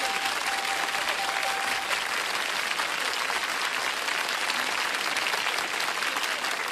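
Studio audience applauding steadily after a contestant guesses the password on the first clue.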